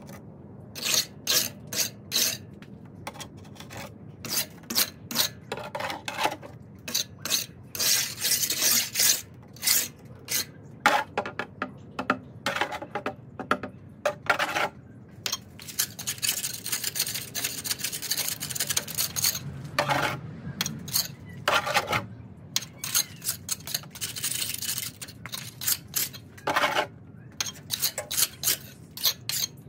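Hand trowel scraping and rubbing on stucco in quick, irregular strokes, with a few longer rubs, as fresh stucco is worked over the wall.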